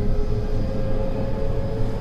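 JR West 225 series 100-subseries electric train running, heard from inside the car: a steady low rumble of the running gear with an even hum over it that creeps slightly higher in pitch.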